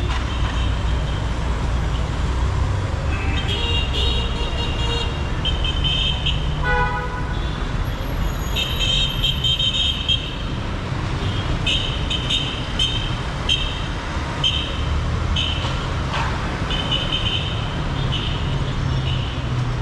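Busy street traffic: engines running as a steady low rumble, with vehicle horns honking again and again in short, high beeps. The beeps come thick and fast from about four seconds in, with one lower-pitched horn among them.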